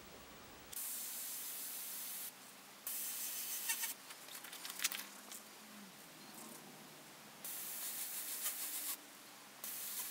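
Gravity-feed airbrush spraying acrylic ink in four short bursts of hiss, each a second or so long, as the trigger is pressed and released. Faint scattered clicks come between the second and third bursts, over a faint steady low hum.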